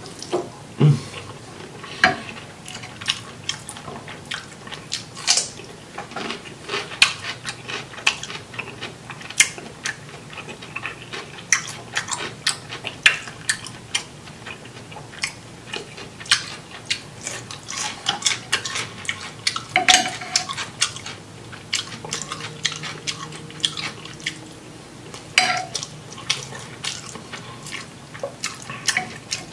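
Close-up eating sounds: wet, smacking mouth clicks of chewing rice, shrimp and sausage, coming irregularly several times a second, with now and then a fork tapping and scraping on a ceramic dish.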